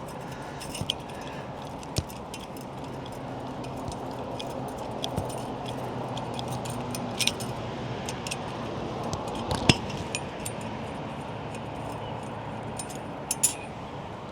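Small metal hardware clinking and clicking while an old makeshift clamp is worked loose and taken off an antenna mast: irregular light ticks and jingles, with one sharper click nearly ten seconds in, over a faint steady hum.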